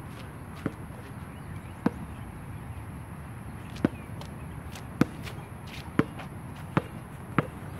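A basketball bouncing on a hard outdoor court: seven sharp bounces at uneven spacing, coming closer together near the end.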